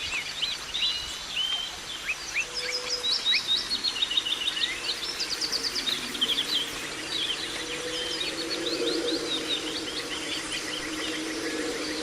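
Several songbirds chirping and singing, with quick runs of repeated notes, over a steady outdoor hiss. A low wavering hum joins in about halfway.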